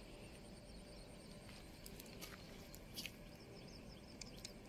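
Near silence: faint outdoor ambience with a few soft clicks, the clearest about three seconds in.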